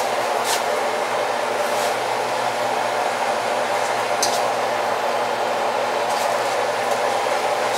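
A steady blower fan whooshing without a break, with a faint low hum under it and a few short faint clicks over it.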